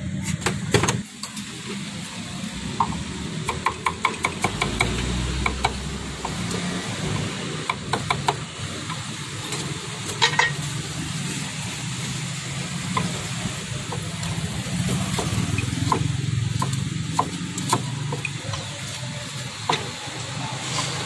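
Cleaver chopping on a wooden chopping board: runs of quick sharp knocks, a fast burst a few seconds in, a louder pair about halfway and scattered chops near the end, over a steady low hum.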